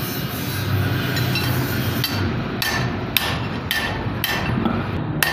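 Hammer blows on steel rod: sharp ringing strikes about two a second through the second half, over a steady workshop noise.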